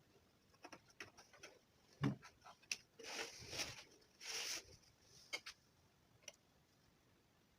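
Faint, scattered small clicks and taps of objects being handled, with two short rustling noises in the middle, about three and four and a half seconds in.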